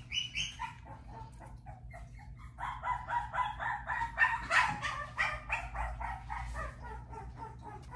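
Puppy giving a quick series of short, high-pitched yips and whines, about four or five a second.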